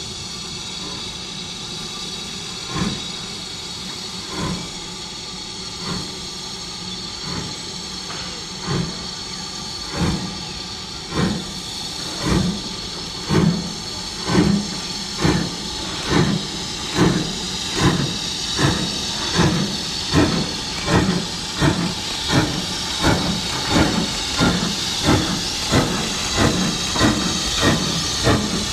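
Steam locomotive pulling away: exhaust chuffs begin about three seconds in, slow at first and quickening steadily to nearly two a second, over a continuous hiss of steam.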